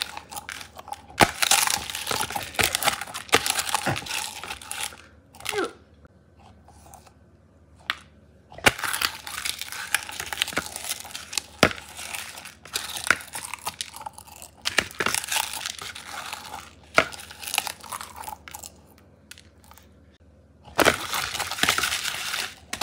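Pringles crisps being crushed under a shark hand puppet's jaws on a plastic plate: crackling and crunching with sharp snaps as the chips break. It comes in three bouts, with two pauses of a few seconds between them.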